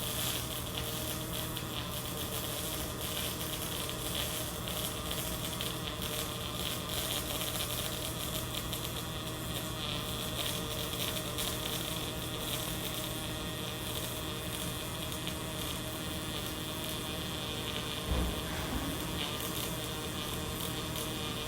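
Pulsed spray MIG welding arc (Lincoln Rapid Arc mode, .045 ER70S-6 wire, 75/25 argon-CO2) burning continuously on steel pipe: a steady buzzing sizzle with fine crackle over a low hum. A brief low bump comes near the end.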